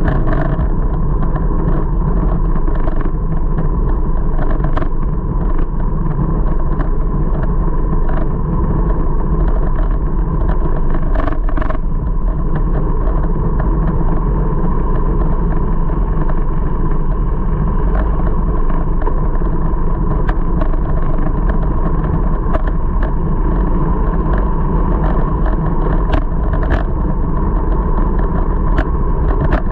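Steady rush of wind and road noise on a bicycle handlebar-mounted camera as the bike rides along, with scattered light clicks and knocks.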